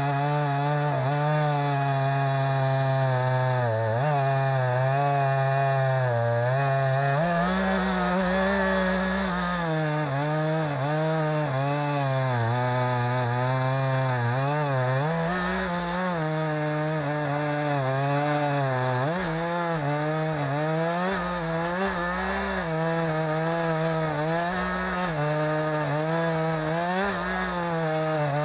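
Two-stroke chainsaw running steadily under load, ripping lengthwise through a log to mill a square beam. Its engine pitch dips and recovers slightly as the cut goes.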